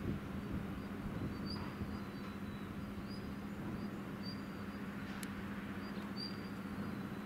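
Outdoor ambience in a dry dock: a steady low hum over a low rumble, with short high bird chirps about once a second and a single sharp click about five seconds in.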